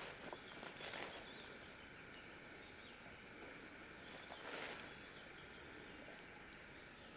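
Faint bush ambience with a thin, steady high insect hum, and two soft swishes of someone stepping through leafy undergrowth, about a second in and again past four seconds.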